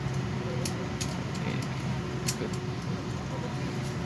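Steady drone of an airliner cabin, with a low hum throughout and a few light clicks.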